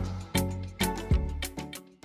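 Background music with a steady beat of sharply struck pitched notes.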